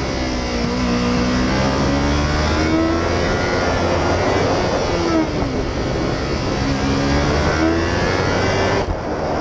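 Motorcycle engine on a racetrack, heard from a camera mounted on the bike, its pitch rising and falling several times as the rider accelerates and backs off through corners. There is a brief break in the sound near the end.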